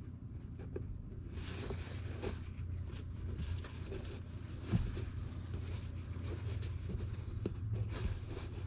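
Shop towel wiping a differential case: cloth rubbing, with small clicks of handling and one sharper knock about halfway through. A steady low hum runs underneath.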